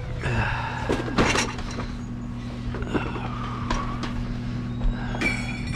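Loaded hand truck of plastic crates wheeled over a threshold and across a floor: scattered knocks and rattles from the crates and frame over a steady low hum, with a bright ringing clatter near the end.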